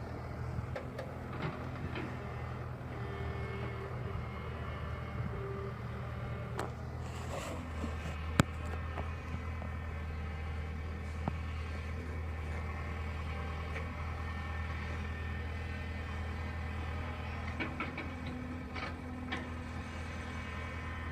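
Diesel engine of an excavator or backhoe running steadily, its note dropping a little about six seconds in, with a few sharp clanks, the loudest about eight seconds in.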